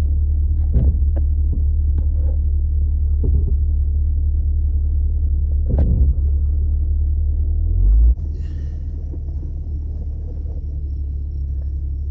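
Low, steady rumble of an off-road SUV's engine as it drives up a grassy hill, with a few short knocks and brush noise. About eight seconds in the level drops suddenly to a quieter, even engine drone heard from inside a vehicle cab.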